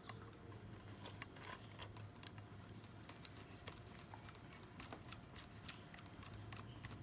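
Faint, irregular small clicks and scrapes of a small screwdriver driving a tiny screw to fasten the coupling on an HO-scale model locomotive.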